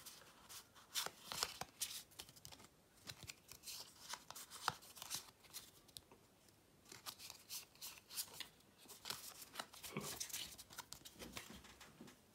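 A stack of Pokémon trading cards handled by hand, the cards sliding and flicking against each other in a run of light clicks and papery rustles. It is busiest about a second in and again around ten seconds.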